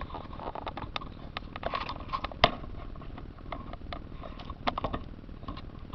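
Handling noises: scattered light clicks and knocks, with one sharp knock about two and a half seconds in.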